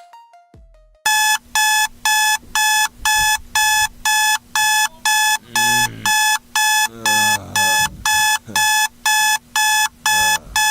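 Digital alarm clock beeping, about two short beeps a second, starting about a second in. In the second half a voice groans a few times under the beeping.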